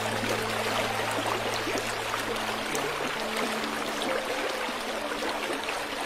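Steady rushing of a mountain waterfall and its stream, with soft background music of held low notes underneath that shift to a new chord near the middle.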